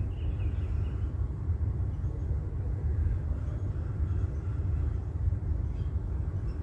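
Steady low rumble of a car driving, heard from inside the cabin: tyre and engine noise.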